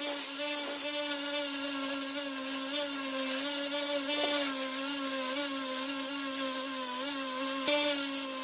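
Belt grinder running while a steel spike is ground against its belt: a steady motor whine with a hiss of abrasive on metal, the pitch dipping slightly now and then as the steel is pressed in.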